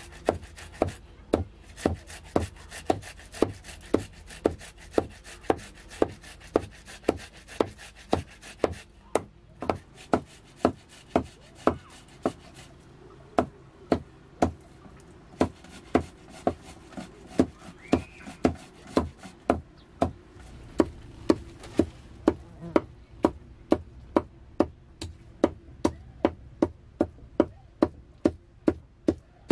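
Steady chopping, one sharp blow about every half second, keeping an even rhythm throughout.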